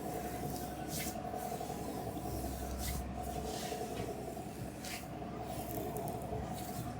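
Oiled hands sliding over bare skin in a back massage, a hissy swish about every two seconds, over a steady background hum.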